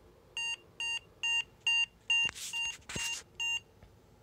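A 486 motherboard's PC speaker sounds a run of eight short, evenly spaced beeps of one pitch, about two a second. This is the AMI BIOS error beep code for a failed display memory test, given because no video card is installed. Some handling rustle and a couple of clicks come midway.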